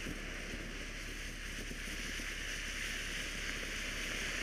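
Ground firework fountain spraying sparks with a steady hiss that grows a little louder near the end.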